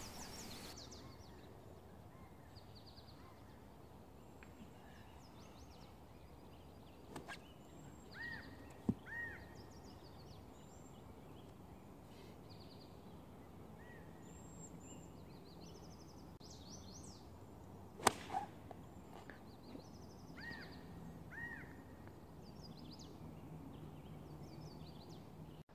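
Faint outdoor ambience with small birds chirping and whistling in the trees. About two-thirds of the way through comes one sharp crack, a 7-iron striking a golf ball off the tee, preceded earlier by a couple of small clicks.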